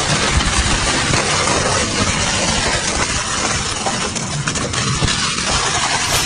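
Double-shaft shredder chewing through a load of plastic toys: a steady, loud machine grind broken by repeated sharp cracks of plastic breaking in the cutters.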